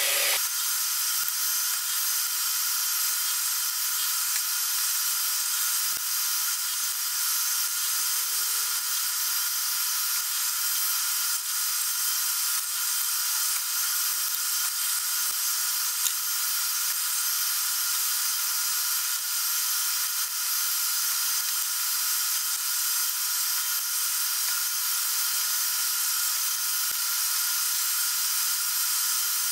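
Milling machine spindle running steadily while cutting a small steel camshaft blank: an even high-pitched whine over a hiss.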